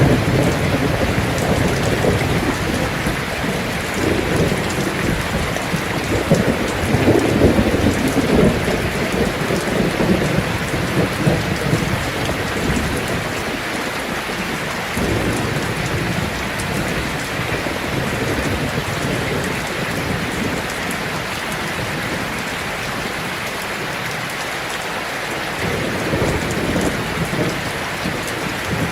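Heavy rain drumming steadily on a tin roof, with low rolling thunder that swells during the first third and rumbles again faintly near the end.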